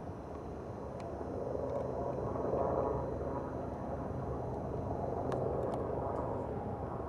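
Steady distant vehicle rumble, swelling a little about two seconds in, with a few faint clicks.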